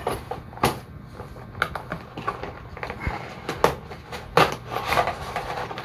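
Packaging being opened and handled: irregular crackles, taps and knocks, with a few sharper clicks.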